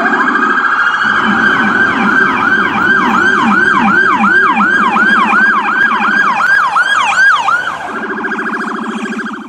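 Electronic emergency-vehicle siren sounding loudly. It opens with a rising wail, goes into a fast yelp sweeping up and down about three times a second, then near the end switches to a quieter, rapidly pulsing steady tone that cuts off.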